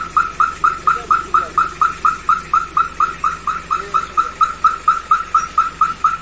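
An electronic beeper chirping rapidly and evenly, about four or five chirps a second at a steady pitch: a vehicle's reverse-warning buzzer sounding as the SUV manoeuvres.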